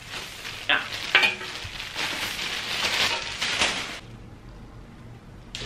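Clear plastic wrap crinkling and crackling as it is pulled off metal shoe-rack panels; the crackling stops about four seconds in.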